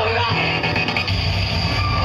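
Heavy rock music with distorted electric guitar.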